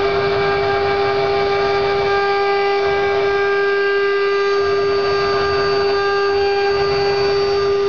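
Woodworking CNC router spindle running with a steady high whine while its bit carves a relief pattern into a wooden board, with the hiss of the cut underneath.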